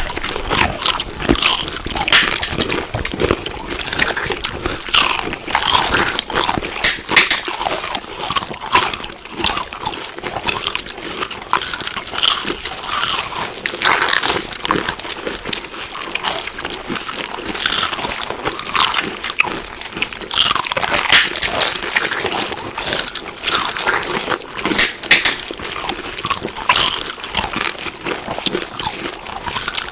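Crunchy food being bitten and chewed: a dense, uneven run of crisp crunches.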